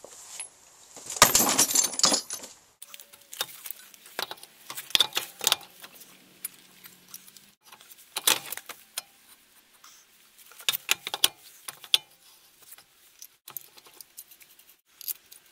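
A steel wheel being hung back on a car's front hub and its wheel bolts fitted by hand: scattered metallic clinks and scrapes, with a louder scraping rub about a second in as the tyre is worked onto the hub.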